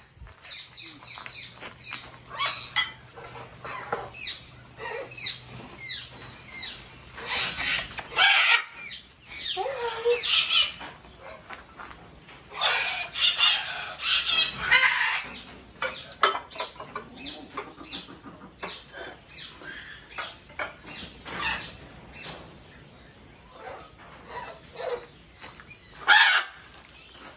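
Aviary birds, macaws among them, calling in a long string of harsh squawks and short calls, loudest in clusters around the middle and in one strong burst near the end.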